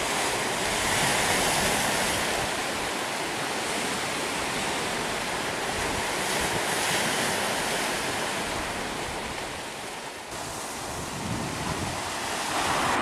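Sea surf washing onto a small sandy and rocky beach, mixed with wind on the microphone: a steady rushing hiss that slowly swells and eases.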